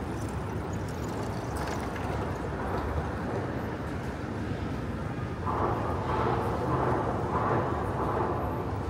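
City street ambience: a steady traffic rumble with passers-by talking, the voices louder from about five and a half seconds in.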